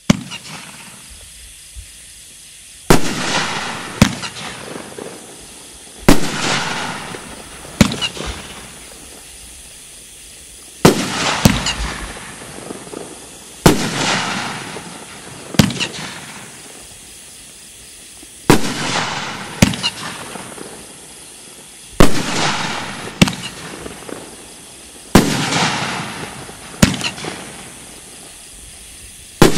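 A 500-gram nine-shot fireworks tube rack firing its aerial shells one at a time. There are about eight shots, three to four seconds apart, each a launch thump followed a second or two later by the shell's loud bang and a fading hiss.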